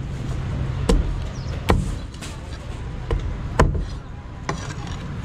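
A heavy cleaver chopping through a fish into steaks on a thick wooden chopping block: five sharp chops, unevenly spaced about a second apart, the second, third and fourth loudest.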